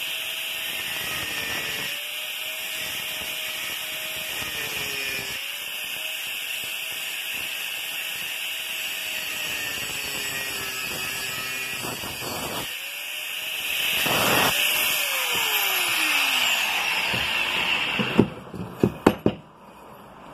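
Angle grinder with a cutting disc cutting through a 2-inch steel pipe, its whine dropping in pitch as the disc bites and recovering several times, louder in the last third. Near the end it stops and a few sharp metal clinks follow as the cut-off piece falls onto the bench.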